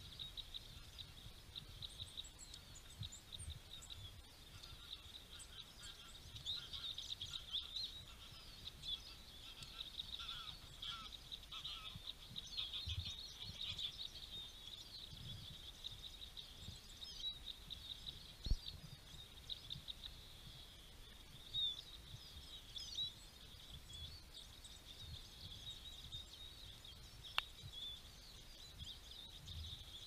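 A flock of small songbirds chirps and twitters continuously in a dense, overlapping chorus. A few low thumps and one sharp click come through underneath.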